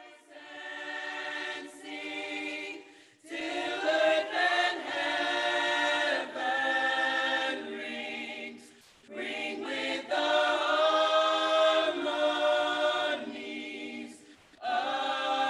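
Intro music of choral voices singing long held chords in phrases a few seconds long, with short breaks between phrases.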